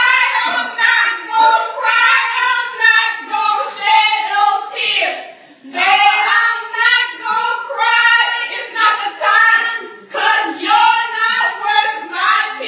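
Singing voices performing a song, with a steady pulse of about two beats a second.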